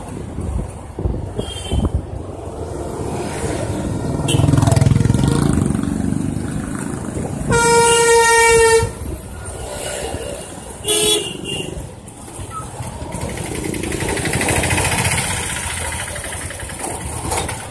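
Street traffic heard from a moving two-wheeler: a steady rumble of engine and wind, with a vehicle horn blaring for about a second and a half near the middle and a shorter horn toot a few seconds later.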